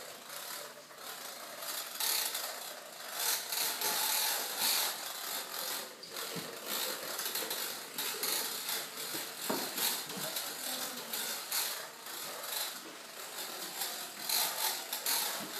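Toy push lawn mower's plastic ratcheting mechanism clattering continuously as it is pushed across a wooden floor, rising and falling in loudness with the pushing.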